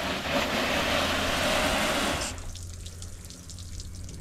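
A hard spray of water from a hose hitting the painted metal side of a pickup truck, a dense steady hiss that cuts off suddenly about two seconds in. Light dripping and trickling follows.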